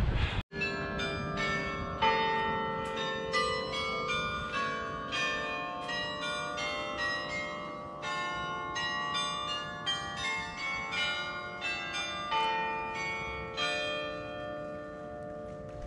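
Church tower bells ringing a quick, uneven sequence of different notes, about two or three strikes a second, each note ringing on under the next. The bells start just after a brief break at the very start.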